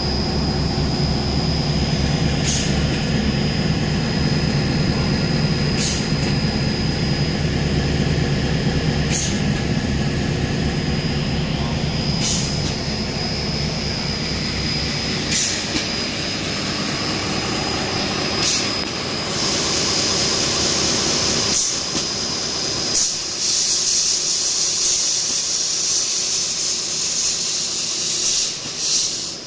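Wide belt sander for metal running steadily: a low machine rumble with hiss and a steady high whine, and a faint tick repeating about every three seconds. About three-quarters of the way through, the low rumble drops away and a brighter hiss comes forward.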